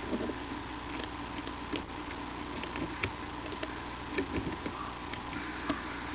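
Bald eagles feeding on a stick nest: scattered sharp clicks and soft rustles, irregular and a second or so apart, over a steady electrical hum from the nest-camera microphone.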